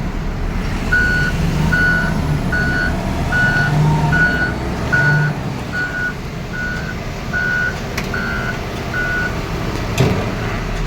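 Heavy construction machine's reversing alarm beeping eleven times at a steady pace, a little over one beep a second, over its engine running. A sharp knock near the end.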